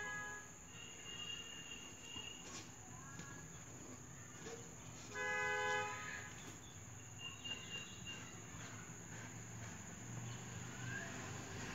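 A horn honks once, a steady multi-tone blast of under a second, about five seconds in. Faint thin high tones come and go over a low steady hiss.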